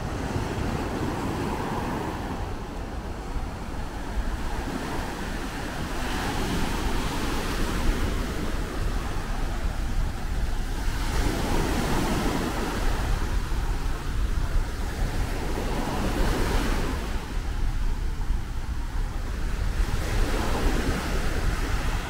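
Sea waves washing onto a beach, swelling and falling away about every five seconds, with wind buffeting the microphone.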